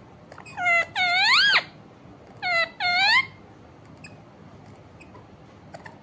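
Rose-ringed parakeet giving four loud whistled calls that dip and then rise in pitch, in two pairs, the second call of each pair longer.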